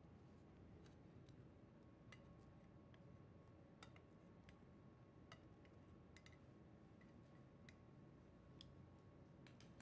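Near silence: room tone with faint, irregular small clicks and ticks from a plastic seasoning shaker and metal kitchen tongs being handled while raw burger patties are seasoned.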